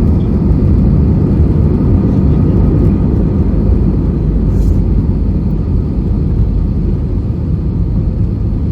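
Steady low rumble of an Airbus A320-214 heard from inside the passenger cabin: engine and airframe noise, easing slightly toward the end.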